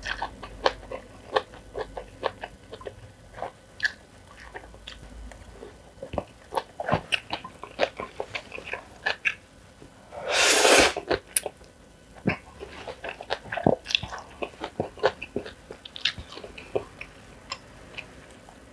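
Close-miked eating: wet mouth smacks and chewing of black bean sauce ramen noodles and kimchi, heard as many short, crisp clicks. About ten seconds in there is one louder rushing sound lasting about a second.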